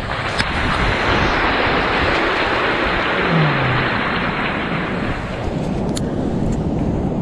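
Surf washing up the beach: a long rush of a breaking wave that swells about half a second in and eases off after about five seconds, with wind rumbling on the microphone underneath.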